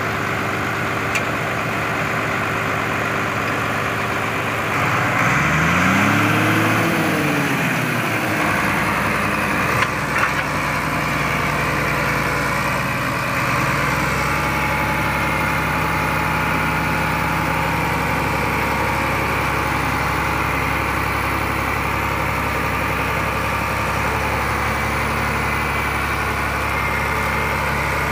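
Crawler bulldozer's diesel engine running steadily. About five seconds in it revs up and back down once, then settles into a steady run while the dozer pushes garbage with its blade.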